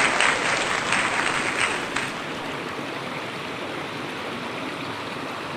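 Waterfall stream water rushing steadily. It is louder and brighter for the first two seconds, then drops to a softer, even rush.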